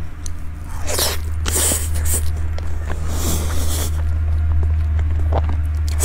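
Close-miked eating sounds: a person biting and chewing a soft, cold dessert, with a few louder hissy mouth noises, over a steady low hum.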